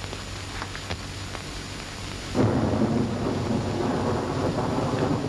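A sudden loud rumble breaks in about two seconds in and keeps going, over the steady hiss of an old optical film soundtrack; a few faint clicks come before it.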